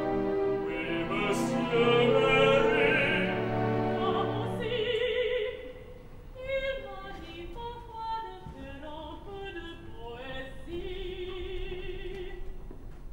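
Opera singing with orchestra. For about the first five seconds the orchestra plays fuller and louder. Then a woman's voice sings a line with vibrato over quiet, sparse orchestral accompaniment.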